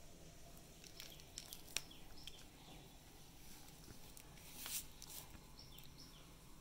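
Quiet background with faint bird chirps, short falling calls scattered throughout, and a few light clicks in the first two seconds. A brief breathy hiss comes about two-thirds of the way in.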